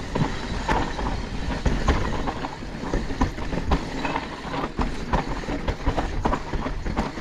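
Mountain bike riding fast over rough trail: a continuous low rumble with many irregular clattering knocks and rattles from the bike.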